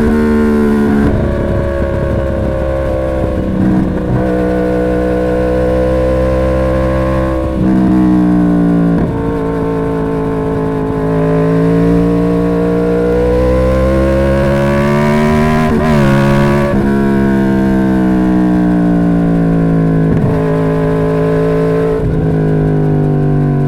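2011 Yamaha R1's crossplane inline-four running through its stock exhaust. The engine note climbs slowly and drops abruptly several times, as with gear changes, with one quick rise and fall of revs about two-thirds of the way through.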